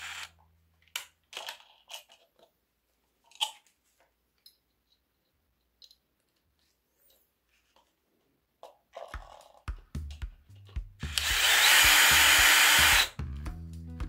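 Cordless brushless drill/driver running for about two seconds near the end, driving a screw to fix a wall switch plate, over background music that comes in about nine seconds in. A few short clicks and knocks in the first seconds.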